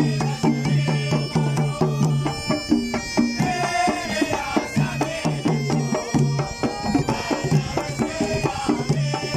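Live Omani folk drumming: several double-headed barrel drums beaten in a steady, continuous rhythm, with a low pitched drum pulse that drops out for a couple of seconds in the middle.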